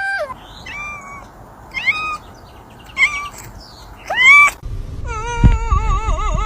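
Domestic cat meowing: four short meows about a second apart, the last the loudest with a rising pitch. Near the end a steady wavering tone with low thumps takes over.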